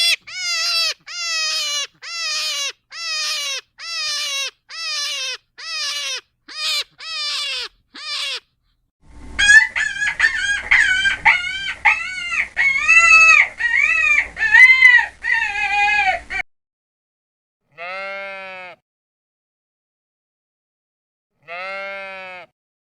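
Farm animal calls in three cut-together clips. First, a bird calls about twelve times in an even series, each call falling in pitch. Then a flock of fowl calls busily over a low hum, and last a sheep bleats twice, a few seconds apart.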